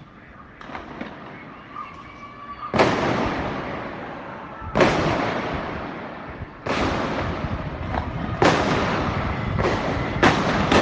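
A series of loud detonations during a street clash: a few faint pops, then about six sharp blasts starting about two and a half seconds in and coming closer together towards the end, each trailing off in a long echo.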